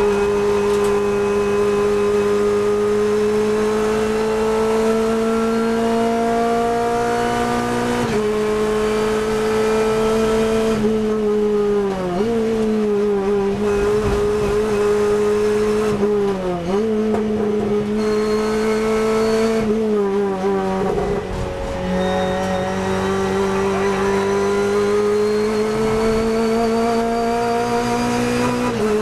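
Renault Clio Cup race car's four-cylinder engine heard from inside the cabin, running hard at high revs. Its pitch climbs slowly, steps down with an upshift about eight seconds in and again at the very end, and dips briefly twice in the middle.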